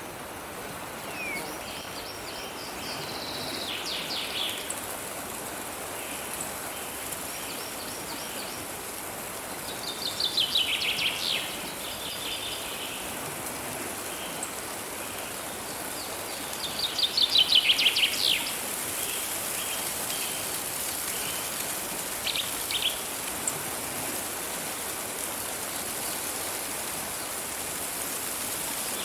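Songbirds singing short, rapid trilled phrases that fall in pitch, two of them louder than the rest, over a steady rush of running water.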